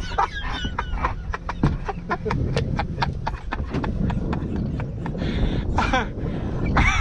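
A run of sharp, uneven clicks from a fishing reel, a few to the second, as a hooked fish is fought, over wind on the microphone; a short call near the end.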